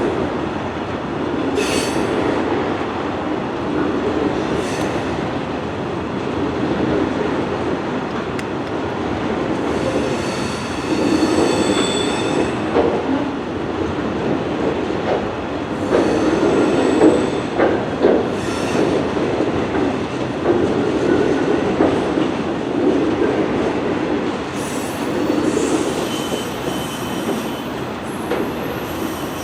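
A train rolling past, its wheels on the rails making a steady rumble that swells and fades every couple of seconds. Brief high-pitched wheel squeals come several times.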